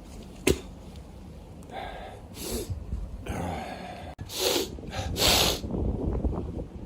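A man snorting and hawking up phlegm in a string of about five harsh, noisy bursts, after a single sharp click about half a second in.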